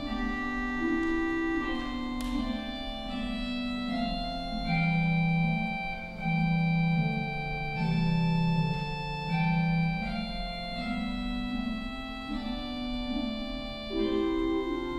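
Church organ playing a hymn tune, a right-hand melody over a left-hand accompaniment in parallel thirds, in held chords that change about once a second.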